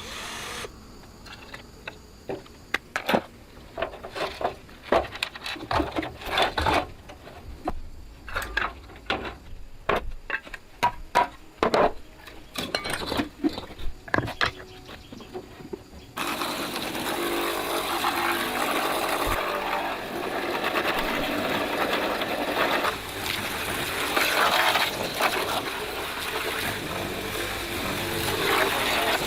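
Irregular light clicks and knocks of small parts and hand tools being handled. A little past halfway, a steady rough mechanical noise starts abruptly and continues.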